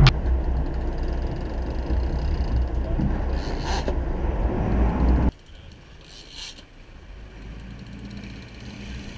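Boat engine running under wind and water noise on a small action-camera microphone, a steady low rumble. It drops sharply in level a little over five seconds in.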